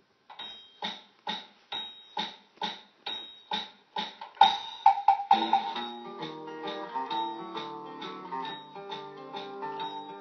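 Instrumental music opening a song: single plucked chords about two a second, then a louder quick flourish near the middle. After it, held chords ring on with lower notes moving underneath.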